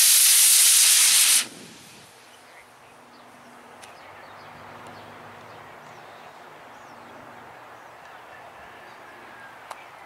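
Model rocket motor burning with a loud, steady hiss that cuts off sharply about a second and a half in as the motor burns out. After that, only a faint steady rush of wind.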